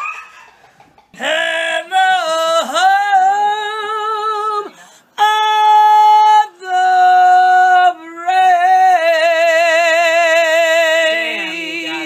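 A woman singing loudly, with no accompaniment to be heard. She holds long notes with a wide vibrato, in several phrases with short breaks between them.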